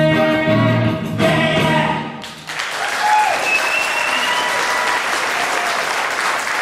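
A choir of singers with backing music holds the last chord of a song, which ends about two seconds in. A live audience then applauds, with a few cheers.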